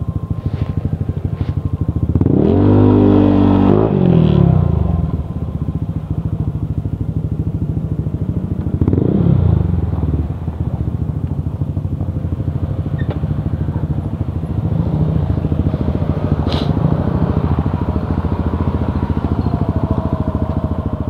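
Yamaha Aerox scooter's single-cylinder engine, bored up to 200cc and breathing through an MTRT Evo 2 stainless exhaust, running under way. Its pitch rises and falls twice, once about two seconds in and again about nine seconds in. There is a short click near the end.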